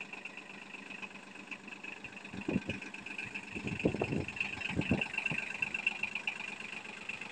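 Yanmar KE-50 compact tractor's diesel engine running at low speed as the tractor creeps up steel mesh loading ramps, with a steady high whine over it. A few brief, louder low sounds come about halfway through.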